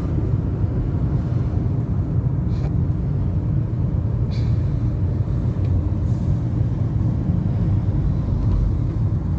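Steady low rumble of a car's engine and tyres, heard from inside the cabin while the car drives along a town street.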